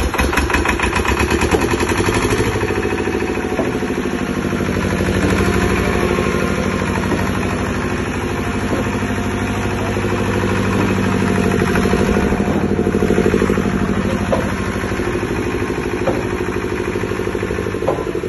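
Diesel engine of a 25 kVA generator set running steadily just after being started, a rapid even chugging whose loudness swells slightly a couple of times. A few light clicks near the end.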